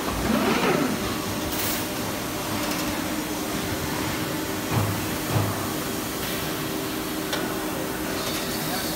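Steady hum of factory machinery around an Amada Astro-100 robotic press brake cell, with a constant low tone under it and two short low thuds about five seconds in.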